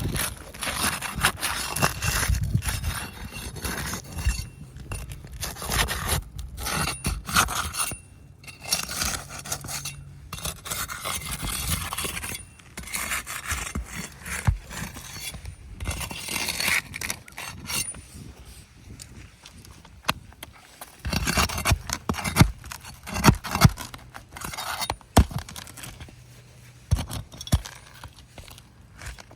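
Irregular scraping and rubbing, with scattered sharp clicks and knocks, from asphalt roof shingles being handled and walked on during an inspection for damage and granule loss.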